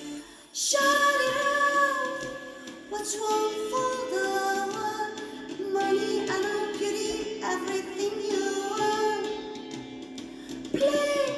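A woman singing a Korean ballad, holding long notes in phrases, after a short break about half a second in.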